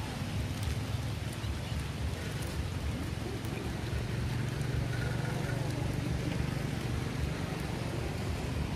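Steady rain falling on puddles and wet ground, with a low steady rumble underneath.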